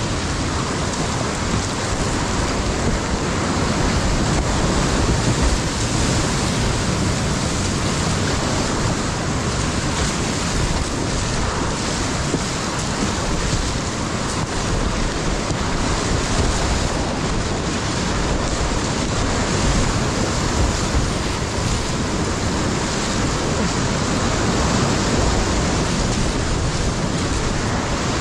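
Steady, loud rush of class 5 whitewater rapids, heard from inside a kayak running them.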